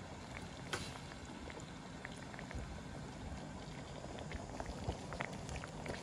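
A pot of braised beef with carrots bubbling at a simmer, with small pops from bursting bubbles scattered through a steady hiss.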